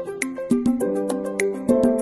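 Background music: an upbeat tune with sustained pitched notes and a steady beat of percussion strokes.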